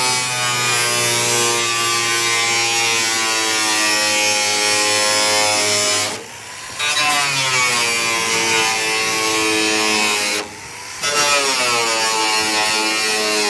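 An electric power tool's motor runs steadily and is switched off and on twice for about half a second each time, its pitch sliding as it winds down and back up.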